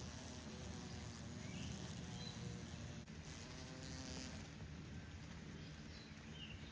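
A horse fly buzzing its wings in on-and-off bursts as it struggles in the grip of a predatory insect.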